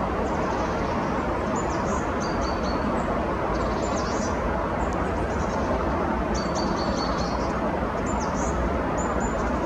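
Small birds chirping and calling high up in short phrases, some as quick runs of repeated notes, over a steady rushing noise that is louder than the birds.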